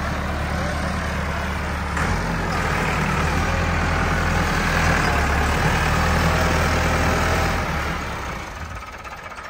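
Massey Ferguson 385 tractor's diesel engine working hard under heavy load as it drags a sugarcane-laden trolley through soft sand. The engine is loudest through the middle and eases off near the end.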